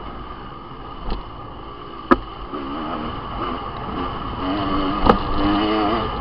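Dirt bike engine heard from the bike itself as it rides a rough trail, the pitch wavering with the throttle and rising louder over the last couple of seconds. Two sharp knocks stand out, about two seconds in and again about five seconds in.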